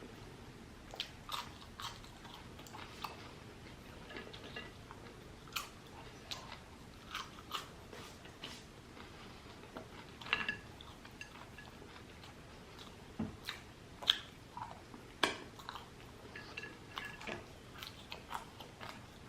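Close-miked chewing and crunching of fried food (breaded fried shrimp and Cajun fries): irregular crisp crunches and mouth clicks, with a few louder ones past the middle.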